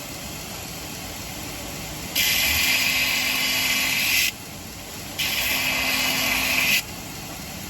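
Stainless steel cleaver blade ground on a running sharpening machine: two hissing passes of the edge against the wheel, the first about two seconds long and the second a little shorter, over the machine's steady hum. The passes are kept brief on the side that already has a burr.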